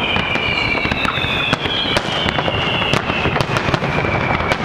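A fireworks display: many sharp bangs and crackles in quick succession, under several high whistles that slowly fall in pitch.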